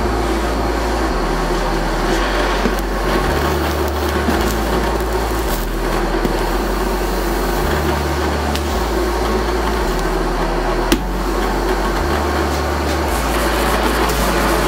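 Electronic dance music with a deep bass line stepping between held notes about once a second. A single sharp click sounds about eleven seconds in.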